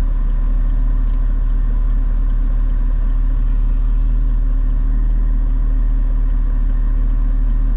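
Straight-piped C6 Corvette's 6.0 L LS2 V8 idling steadily at a standstill, a deep, even exhaust drone heard from inside the cabin.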